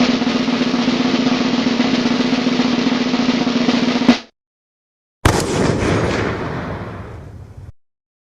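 Snare drum roll, steady for about four seconds and ending in a sharp hit. After a second's pause, a second sound effect starts suddenly and fades out over about two and a half seconds.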